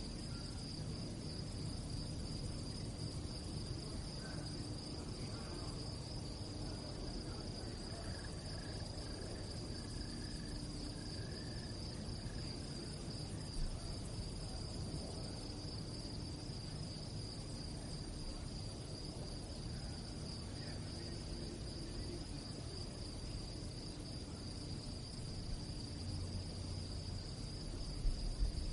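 Crickets chirping at night in a steady, fast-pulsing high trill, with a few faint low knocks near the end.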